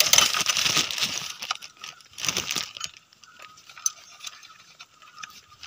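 A wrench and hands working among metal engine parts: a burst of scraping and rustling lasting about a second and a half, a shorter one about two seconds in, then a few light metallic clinks.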